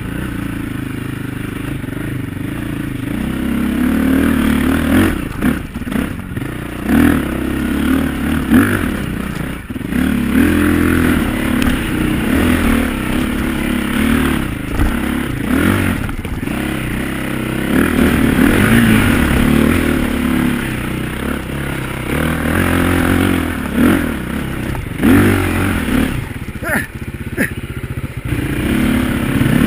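Off-road dirt bike engine running under load, the revs rising and falling as the throttle is worked, with sharp knocks and clatter from the bike striking roots and rocks every few seconds.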